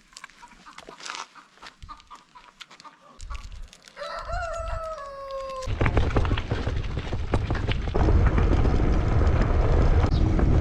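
A rooster crows once, a single drawn-out call about four seconds in. After that a loud low rumbling noise takes over.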